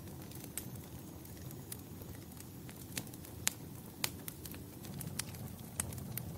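Wood fire crackling: irregular sharp pops and snaps, the loudest about three and a half seconds in, over a steady low rumble of burning.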